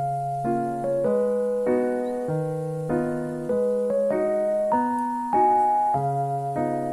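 Background piano music: a melody over chords, with the notes changing about twice a second.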